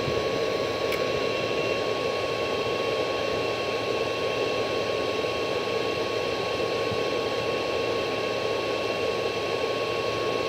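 Steady hiss from a CB linear amplifier and its power supply while the radio holds a keyed carrier, with a thin steady whine running through it. The owner puts this noise down to the amp straining on a 50-amp supply.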